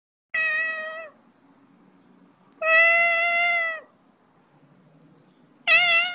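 Domestic cat meowing three times, each a drawn-out meow; the second is the longest, about a second, and the third comes near the end.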